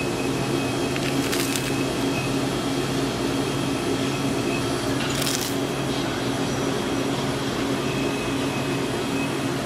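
Two short crunches of a puffed rice cake being bitten and chewed, about a second in and about five seconds in, over a steady machine hum.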